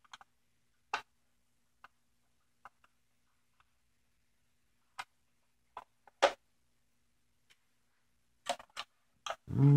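Scattered small clicks and ticks of a screwdriver turning screws out of a plastic 1/16-scale RC tank hull, with handling knocks against the plastic. There is a louder knock about six seconds in and a quick run of clicks near the end.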